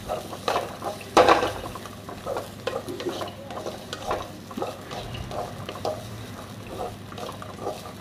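Wooden spatula stirring and scraping diced carrots, beans and green peas around a metal kadai, with a soft sizzle as the vegetables sauté in a little oil over a raised flame. The strokes are irregular, a few a second, the loudest about a second in.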